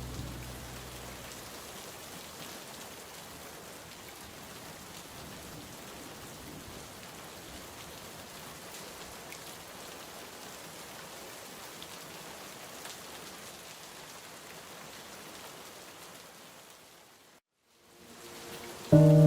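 Steady rain ambience, an even patter with no music over it, after the last low notes of the music die away in the first second or two. Near the end the rain fades out to a moment of silence, then swells back as a sustained music chord begins.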